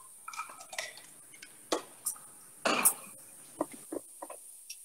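Scattered knocks and clatter of a spatula against a frying pan as sliced onions and garlic are stirred in olive oil, the loudest clatter a little under three seconds in.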